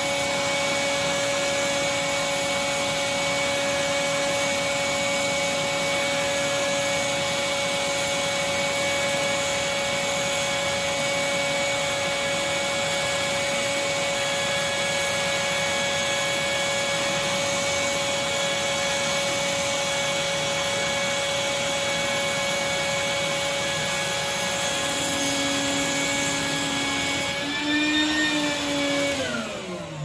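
Shop vac running steadily, its soft-bristle brush nozzle drawn over the fins of a microchannel condenser coil to pull out dust. Near the end the motor is switched off, and its whine slides down in pitch as it spins down.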